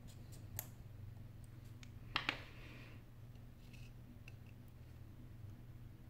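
Light clicks and taps of a small screwdriver and tiny screws and parts against an iPhone 8 Plus's metal frame and a metal parts tray during a teardown. The loudest is a pair of sharp clicks a little over two seconds in, followed by a few faint ticks.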